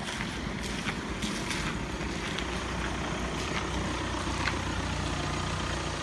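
Steady engine and road rumble of a vehicle in motion, with a few faint clicks or rattles.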